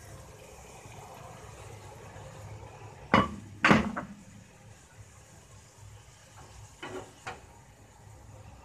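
Kitchen knocks around a frying pan: two sharp knocks about three seconds in, then a few lighter knocks of a wooden spoon against the pan as grated zucchini and garlic are stirred.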